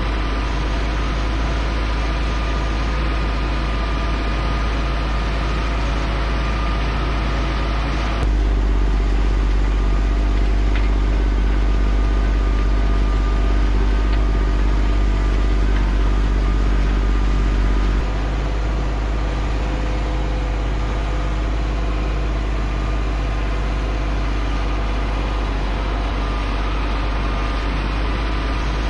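John Deere 8270R tractor's six-cylinder diesel engine running steadily at a constant note while it pulls a chisel plough through the field. The sound steps up abruptly louder and deeper about eight seconds in and drops back just as suddenly about ten seconds later.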